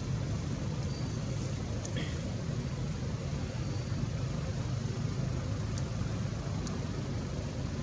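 Steady low rumbling background noise, even throughout, with nothing standing out from it.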